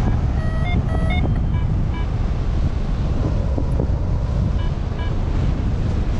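Wind rushing over the microphone of a paraglider in flight, with short electronic beeps from a flight variometer on top: a quick run of them about half a second in, then pairs of beeps, the sound that signals rising air.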